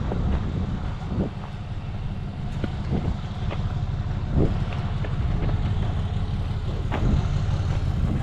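Truck engine running with a steady low rumble, with a few separate knocks and clunks scattered through it.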